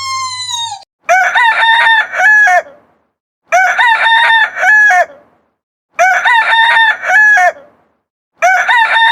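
Rooster crowing four times, the same recorded crow repeated about every two and a half seconds. Just before the first crow a falling whistle-like tone fades out.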